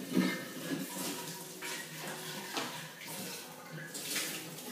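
Liquid sloshing in a glass jar as the jar is handled and tipped up to drink, with sips and swallows near the end.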